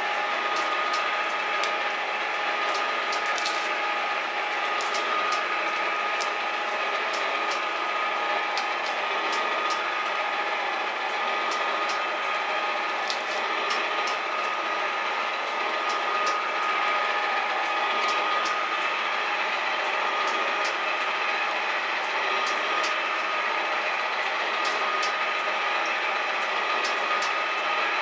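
Metal shaper running and cutting: steady machine noise with a steady whining tone and gear hum, scattered with irregular sharp clicks.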